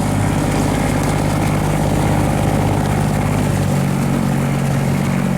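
Engine of a loaded river barge running hard, a loud, steady drone; its pitch shifts slightly a little past halfway.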